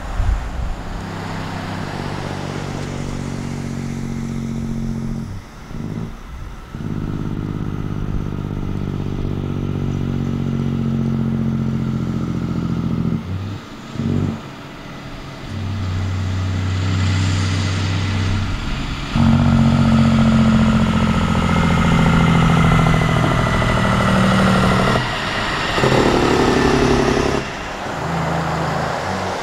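Kenworth C509 heavy-haulage truck's diesel engine pulling a heavy load and working up through the gears. The engine note drops away briefly at each gear change, several times, and it gets louder about two-thirds of the way through as the truck comes closer.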